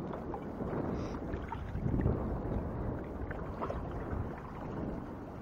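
Wind buffeting the microphone: a steady low rumble that swells briefly about two seconds in.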